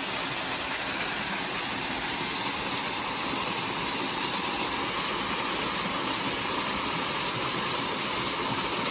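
Small waterfall pouring into a river pool: a steady rushing of falling water.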